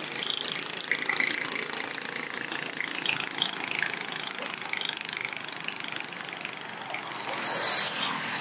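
Road traffic, mostly motorbikes with a few cars, passing on a bridge roadway, a steady mixed drone. A nearer vehicle swells louder near the end.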